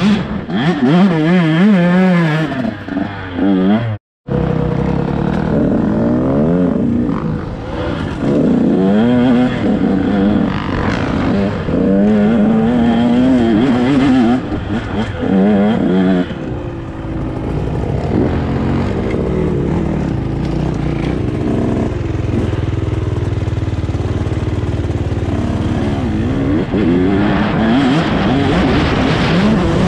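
Dirt bike engine revving up and down as it is ridden over rough hill trails, its pitch rising and falling with throttle and gear changes. The sound cuts out abruptly for a moment about four seconds in. Through the latter part the engine holds a steadier, lower drone mixed with rushing noise before revving hard again near the end.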